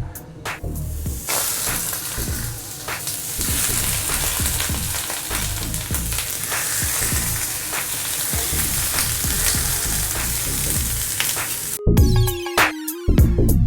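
Lobster frying on a hot teppanyaki griddle: a few sharp clicks of utensils at first, then a steady loud sizzle from about a second in. Near the end it cuts abruptly to electronic music.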